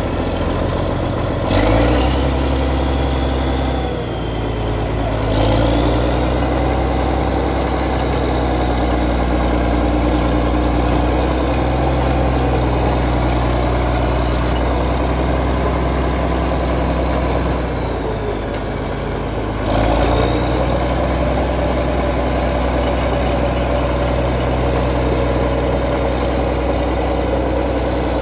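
Caterpillar D6C crawler dozer's diesel engine running as the dozer manoeuvres. The engine note steps up sharply three times: near the start, about five seconds in, and about twenty seconds in, each after a short dip.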